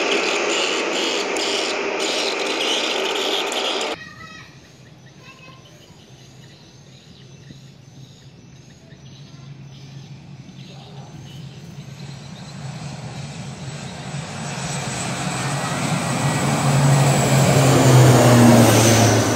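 ATR 42-500 twin-turboprop airliner taking off, its engines and propellers growing louder to a peak near the end with a low steady hum. Before that there is a lull with faint, regular high chirping of birds or insects, and the first few seconds hold a loud steady rushing noise that stops abruptly.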